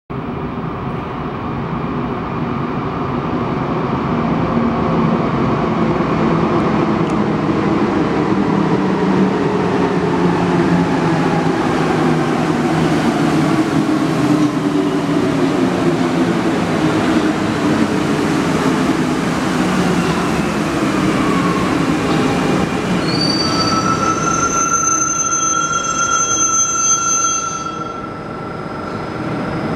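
Alstom NS-16 rubber-tyred metro train pulling into a station and braking to a stop. A rumble and running noise build as it arrives, and the motor whine glides down in pitch as it slows. Near the end, steady high-pitched whines come from the standing train.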